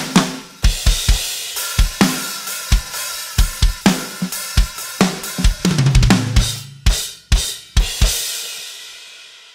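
Drum kit played on its own: bass drum, snare and cymbals in a steady groove. About two-thirds through comes a tom fill stepping down in pitch, then four accented hits, and the last cymbal crash rings out and fades at the end.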